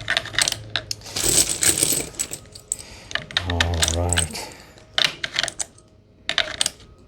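Rifle cartridges clicking and clinking as they are slid one after another through a 3D-printed plastic loader into an AR-15 magazine, with a longer rattling scrape about a second in.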